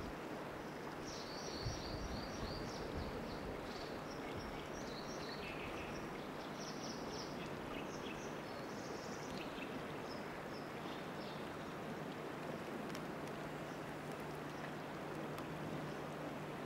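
Steady rush of river water flowing over a gravel bed. A small bird chirps in short high phrases from about a second in until about eleven seconds.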